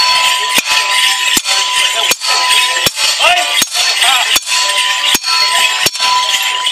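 Border morris dance music: a drum struck on a steady beat about every three-quarters of a second, with a held-note melody instrument playing the tune. Clinks and jingles from the dancers ring through it.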